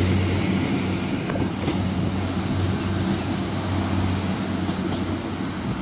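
Class 175 diesel multiple unit moving off, its underfloor Cummins diesel engines running with a steady low drone over wheel and rail noise, slowly fading as the train draws away.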